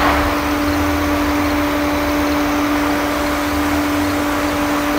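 Steady machine drone holding one unchanging pitch over a low rumble, from machinery at a biogas plant's maize silage clamp.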